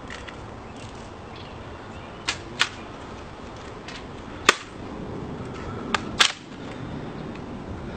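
Sharp slaps and clicks of a rifle being handled in a ceremonial inspection: hands striking the rifle and working its parts. About five crisp cracks come in a couple of quick pairs, the loudest about halfway through.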